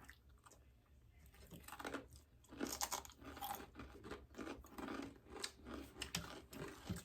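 A person chewing crispy fried breakfast food, close to the microphone: after a quiet first second or so, irregular crunches come every fraction of a second.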